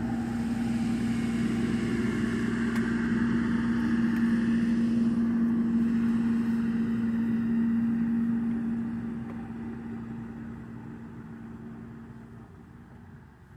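A motor engine running with a steady, unchanging hum, fading away over the last several seconds.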